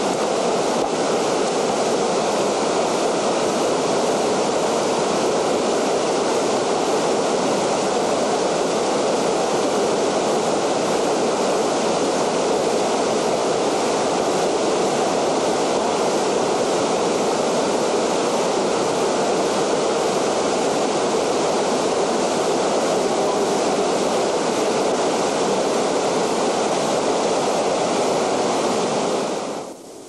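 Fast whitewater river rushing steadily around rocks. The rush drops away abruptly just before the end.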